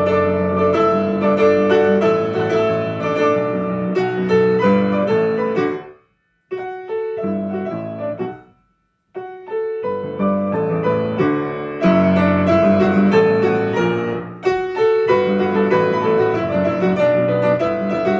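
Grand piano played four hands, two players together at one keyboard, with full chords and many quick notes. The playing cuts out abruptly twice, about six seconds in and again about two seconds later, then resumes.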